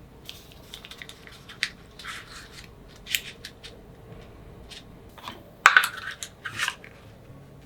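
Kitchen handling sounds: scattered light clicks, taps and short scrapes of utensils and containers, with a louder clack and brief scrape about five and a half seconds in.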